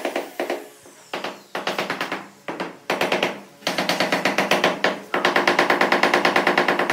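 A hammer tapping rapidly across a large ceramic floor tile to bed it into the mortar. The knocks come in quick runs of about eight a second with short pauses between, over a steady ringing tone.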